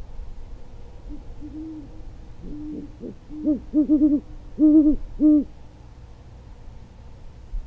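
Great horned owls hooting to each other: a few fainter deep hoots, then about three and a half seconds in a louder rhythmic series of hoots, some quick and some drawn out.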